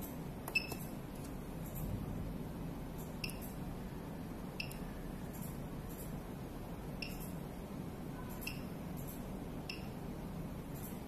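Veterinary ECG machine's key beeps: about six short, faint, high beeps with a click, spaced irregularly one to two and a half seconds apart, over a steady low hum.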